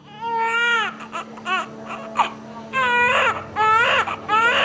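Newborn baby crying in a string of wails, each rising and then falling in pitch, with short catches of breath between them. A steady low hum runs underneath.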